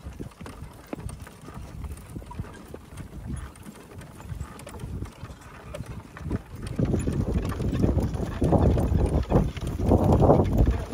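A horse's hooves clip-clopping at a walk as it pulls a two-wheeled driving cart, with the harness and cart rattling along. From about seven seconds in, a louder rough rumbling noise rises over the hoofbeats.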